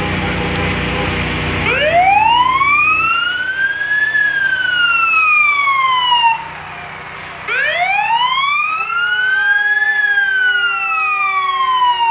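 Fire engine siren giving two long wails, each climbing in pitch for about two seconds and then falling away. The first stops suddenly about six seconds in and the second starts a second later. Under the start is the rumble of the truck's engine.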